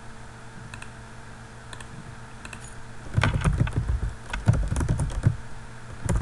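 A few soft mouse clicks, then from about three seconds in, rapid typing on a computer keyboard. The keystrokes come as quick irregular clicks with dull thumps.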